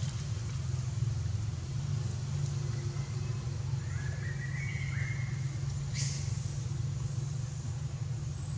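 A steady low rumble, with a faint high chirp about four seconds in and a short click about six seconds in.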